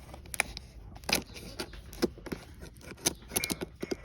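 Box cutter cutting into a cardboard box: a run of irregular scrapes, clicks and short tearing sounds.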